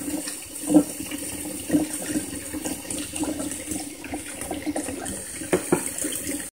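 Cold water from a kitchen tap runs steadily into a stainless steel pot of hard-boiled eggs in the sink, splashing and bubbling, with a few brief louder splashes. The cold water is cooling the eggs to stop the cooking and make them easier to peel.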